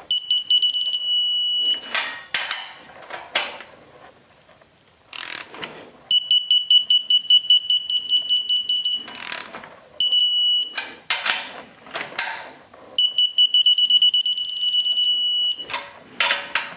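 Electronic torque wrench beeping as it tightens bolts to a set 40 newton-metres. A high beep sounds four times, and most of the time its quick pulses run into a steady tone, which signals that each bolt has reached the set torque. Ratchet clicks and knocks of the socket come in between.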